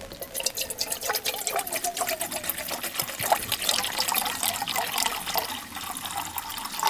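Water poured in a steady stream from a bottle into a small metal camping pot. The pitch of the filling rises gradually as the pot fills.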